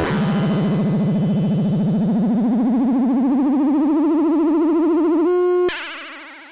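FM synthesizer tone from a Yamaha YMF825 FM chip, warbling rapidly while its pitch glides slowly upward. About five seconds in it steadies, then cuts off, leaving a reverb tail that fades away.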